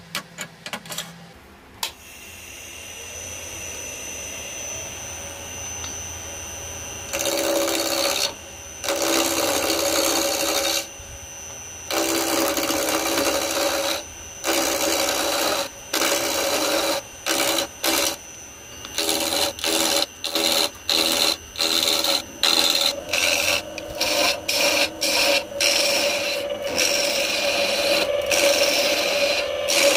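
A few handling clicks, then a wood lathe runs up with a square ebony blank spinning between the chuck and the live centre. From about seven seconds in, a turning gouge cuts the ebony in repeated passes: a loud scraping cut that stops and starts, the passes growing shorter and quicker near the end.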